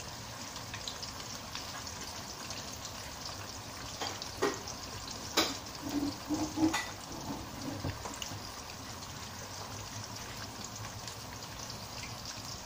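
Eggplant pieces deep-frying in hot oil in a wok: a steady sizzle, with a few sharp clicks between about four and seven seconds in.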